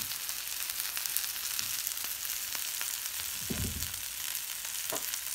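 Sliced onion and carrot sizzling steadily in hot oil in a cast-iron skillet over a charcoal grill, with many small crackles and pops.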